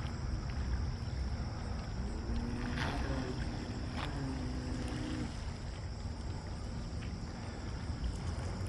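Wind rumbling on the microphone over the faint whine of a radio-controlled model boat's electric drive motors, which rise in pitch about two seconds in and hold for a few seconds before dropping back. The motors run smoothly and quietly now that a loose motor wire has been reconnected.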